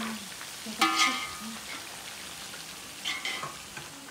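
Hot oil sizzling steadily in a frying pan as pieces of food deep-fry, with two short clinks, about a second in and again just after three seconds.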